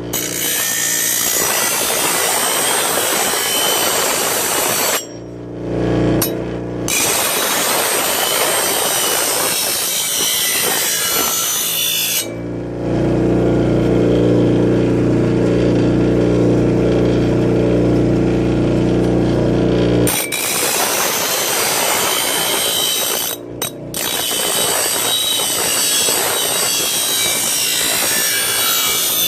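Bench grinder sharpening the steel edge of a circular saw blade: a loud steady grinding hiss while the blade is held to the wheel. Twice, about five seconds in and from about twelve to twenty seconds, the blade comes off and only the motor's steady hum of the freely spinning wheel is left.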